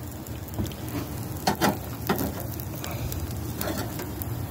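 Hamburger patties sizzling on a grill grate, a steady hiss, with a few sharp clinks of a metal spatula against the grate, the loudest about a second and a half in.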